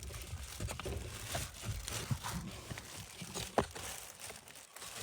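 A new pleated cabin filter rustling and scraping against the plastic housing as it is wiggled and pushed into place by hand, with irregular small clicks and knocks of plastic, one sharper knock about three and a half seconds in.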